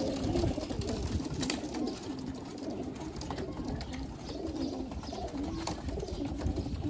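A flock of young racing pigeons cooing continuously, a low wavering murmur of overlapping coos, with a few sharp clicks in between.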